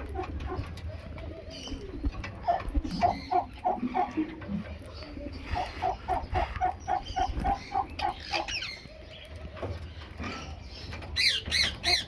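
Birds at a food dish: soft runs of short, low repeated notes, about four or five a second, with scattered clicks. Near the end come a few loud, high squawks, typical of a rose-ringed parakeet.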